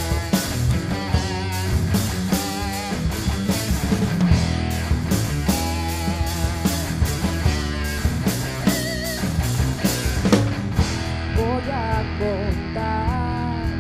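Live rock band playing loudly: electric guitars over a drum kit. About eleven seconds in the drums drop back and a woman's singing voice comes in over the guitar.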